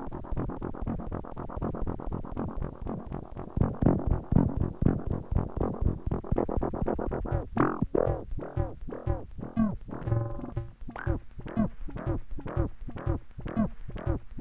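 Behringer Neutron analog synthesizer playing a fast run of short repeated notes. About halfway, the notes space out to about three a second, each one swelling brighter and then dulling again, and a low held tone comes in under them near the end.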